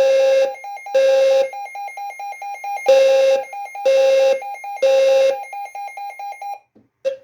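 Fire-alarm low-frequency sounder blaring its 520 Hz square-wave tone in the temporal-3 evacuation pattern: three half-second blasts a second apart, a pause, then three more, set off by a Midland weather radio's alert test. A rapid higher-pitched beeping from the radio's alert runs underneath, and both cut off near the end.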